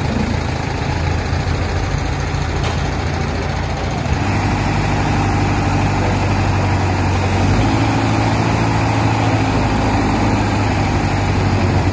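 Diesel engine of an Escorts Hydra 14 pick-and-carry crane running steadily while its boom lowers a heavy concrete pipe into a trench; the engine note grows a little louder about four seconds in.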